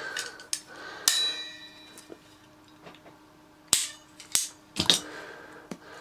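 Several sharp metallic clicks and clanks as the bent steel height-adjuster slide on a vintage Hoover Senior vacuum cleaner's base is forced back and forth by hand. The slide is bent from an old knock and sticks instead of sliding freely. The loudest click, about a second in, rings briefly like struck metal.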